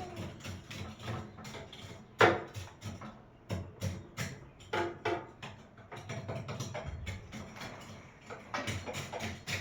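Background music with a steady, clicking percussive beat, with a few louder hits in the middle.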